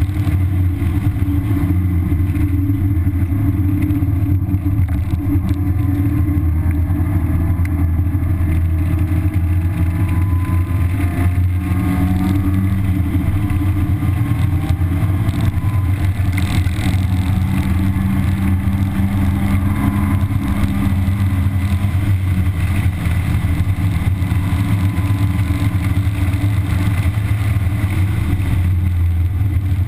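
1991 Mazda Miata's stock-exhausted 1.6-litre four-cylinder engine running hard at track speed, heard from inside the cabin, with steady road and wind noise. Its pitch rises in places.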